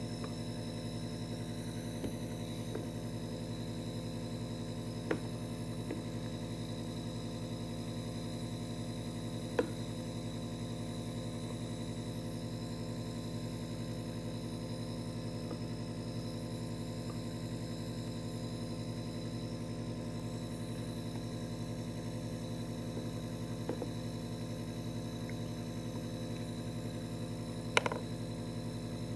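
Steady droning hum made of several fixed tones, with a handful of short sharp clicks scattered through it, the loudest near the end.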